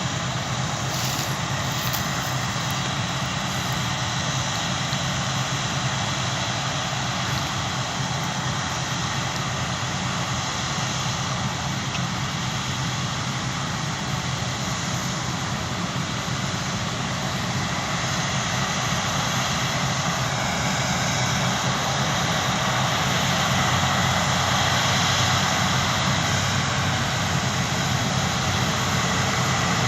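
Claas Lexion combine harvester at work: a steady drone of engine and threshing gear that grows a little louder in the second half.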